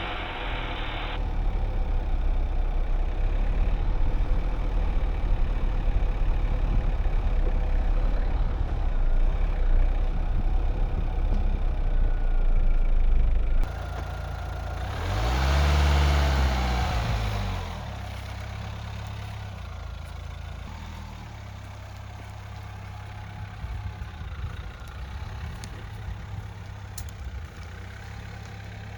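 Dacia Duster's 1.5 dCi diesel engine running as the 4x4 drives off-road. The revs rise and fall once about halfway through, after which it runs more quietly and steadily.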